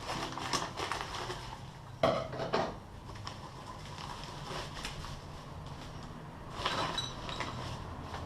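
Metal parts, the VW bus's cargo door handles, clinking and clattering as they are unpacked and handled, with a sharp knock about two seconds in and another run of clinks near the end.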